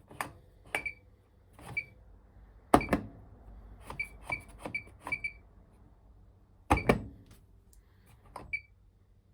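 Electrolux Quickwash washing machine control panel clicking and beeping as its dial and buttons step through the service menu: about a dozen short clicks at uneven intervals, each with a brief high beep, a few of them louder knocks.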